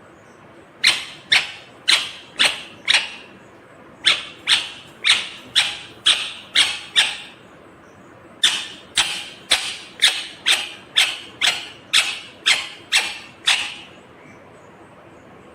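Rose-ringed (ringneck) parakeet giving three runs of short, sharp screeching calls, about two a second, each call starting suddenly and dying away quickly.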